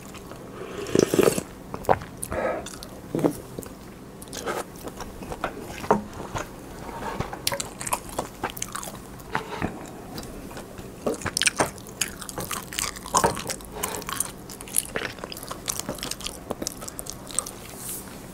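Close-miked eating sounds: a person chewing spoonfuls of pollock roe soup and sipping the broth straight from a bowl, with many short wet mouth clicks.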